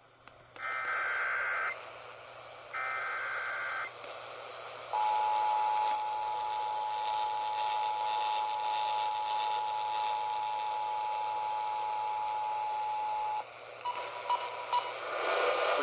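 Emergency Alert System tones heard over radio with steady background hiss: two short bursts of SAME header data tones, then the EAS two-tone attention signal held steady for about eight seconds, announcing a severe thunderstorm warning. A brief faint beep follows, and an announcer's voice begins near the end.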